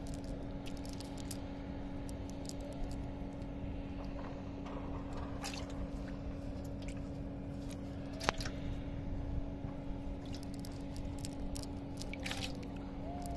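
A steady engine hum with a constant pitch, with wet squelching and a few sharp clicks as the wet net and fish are handled.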